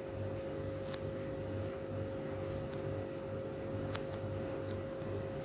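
Faint steady hum with a low pulsing rumble beneath it, and a few light clicks, likely a plastic ladle knocking the bowl of liquid soap.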